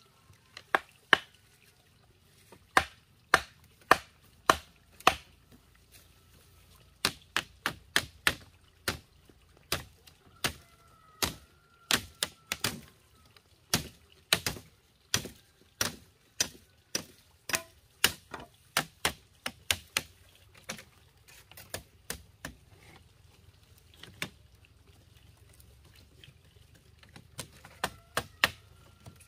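Sharp knocks of nails being hammered into bamboo fence slats and posts, coming in quick runs of several blows with short pauses between them.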